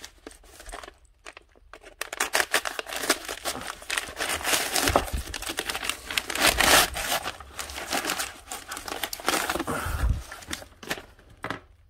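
A padded paper mailer being slit open with a small folding knife and pulled apart: dense, irregular crinkling and rustling of the paper and its bubble-wrap lining, starting about two seconds in.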